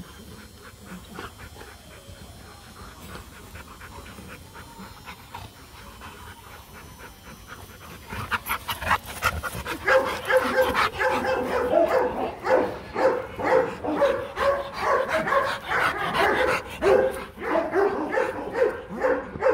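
Rottweilers panting, then from about nine seconds in a dog barks and yips in short, loud, repeated calls, about two a second.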